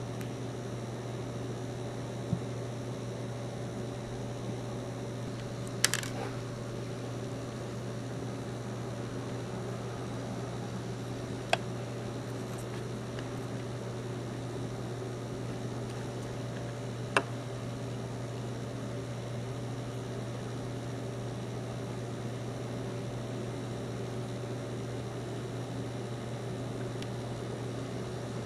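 Steady low hum of room or equipment noise, with a few sharp small clicks and taps, one of them doubled, as small plastic miniature parts are handled and fitted together.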